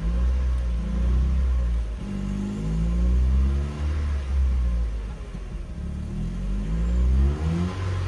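Mercedes W202 C180's 1.8-litre M111 four-cylinder engine being revved up and let fall back several times, its pitch rising and dropping with each blip. The air mass sensor has just been replaced to cure a misfire.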